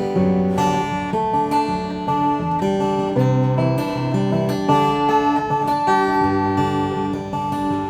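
Guild F-512E 12-string jumbo acoustic guitar being played, a steady run of ringing chords and notes changing about every half second.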